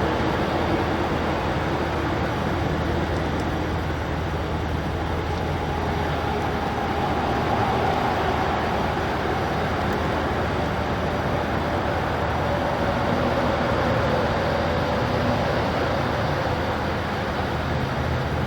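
Steady road traffic noise, a constant rush with a low engine hum underneath and a faint tone that slowly drifts lower.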